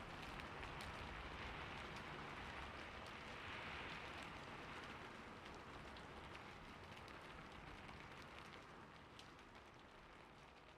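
Faint steady rain falling on a surface, with scattered drop ticks, slowly fading out.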